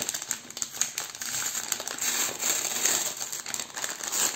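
Paper gift bag crinkling and rustling in the hands as it is handled and opened, an irregular crackle.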